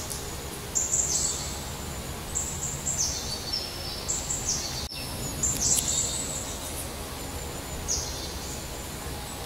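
Small songbirds singing: high, thin phrases of stepped whistled notes, repeated every second or so over steady low background noise.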